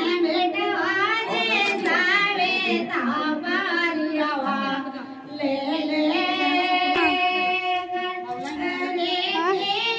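High voices singing a slow melody with long held notes.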